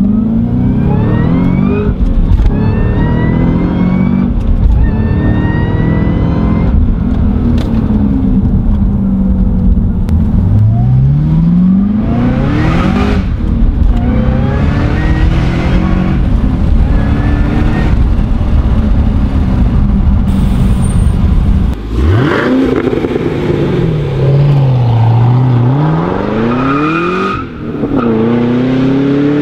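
Cadillac CTS-V's supercharged 6.2-litre V8 breathing through a Corsa X-pipe and Corsa mufflers, heard from inside the cabin. It accelerates hard through several gears, the pitch climbing and dropping back at each upshift. About three-quarters of the way in it is heard from outside as the car drives off, its revs rising and falling.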